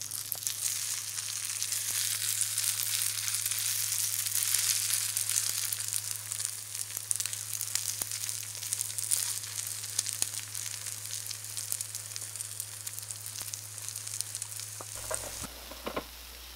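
A rice-and-egg mixture sizzling and crackling as it hits the hot, oiled plate of a waffle maker and is spread out. The sizzle starts at once, is loudest in the first few seconds, then slowly dies down.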